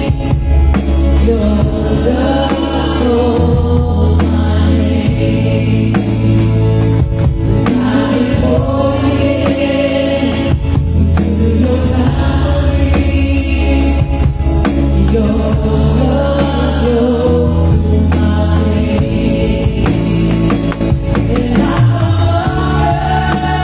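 Live worship band music: drums played on an electronic drum kit, sustained bass notes and several voices singing a gospel song.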